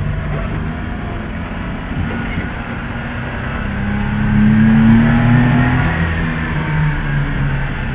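A 1994 Suzuki mini-truck's small three-cylinder engine running under way, heard from inside the cab. About halfway through it revs up with a rising pitch, is loudest about five seconds in, then eases back a little.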